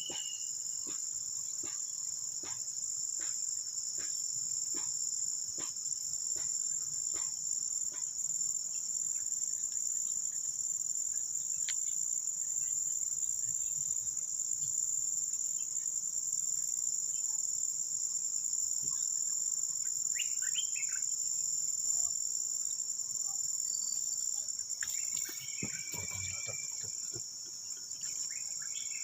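A chorus of insects giving a continuous, steady, high-pitched drone.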